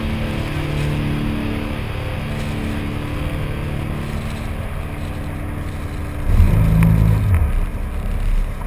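Off-road vehicle engine running steadily, its pitch stepping a little, then revving louder about six seconds in as the vehicle starts to move off.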